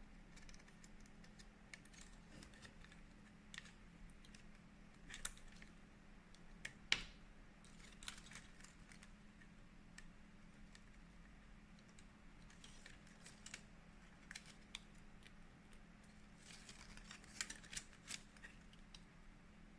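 Faint, scattered clicks and light plastic taps from flat print head ribbon cables being handled and seated into connectors on a printer carriage board. The sharpest click comes about seven seconds in, and there is a cluster of clicks near the end, over a faint steady hum.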